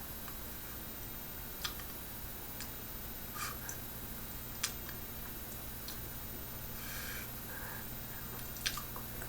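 Quiet room tone with a steady low hum, broken by a few faint scattered clicks and a couple of soft puffs of noise.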